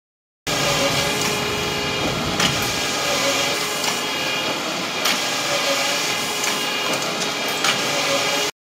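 Paper-handling production line with a feeder, conveyor belts and a book turntable running: a steady mechanical whir and clatter with a sharp click about every two and a half seconds. It cuts in abruptly and stops abruptly near the end.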